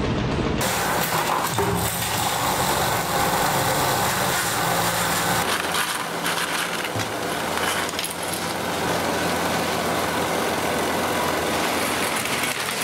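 Treadmill belt and motor running under a motorized LEGO Technic 8x8 truck. About halfway through, a box of loose LEGO pieces is tipped onto the moving belt, and the plastic pieces clatter and click.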